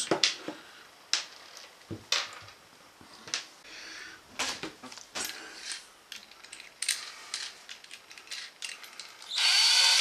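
Cordless drill being readied: scattered clicks and knocks as a bit is fitted and the chuck tightened by hand, then the drill motor runs briefly near the end.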